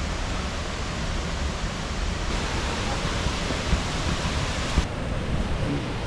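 Steady rushing roar of a waterfall, with a couple of short thumps near the middle.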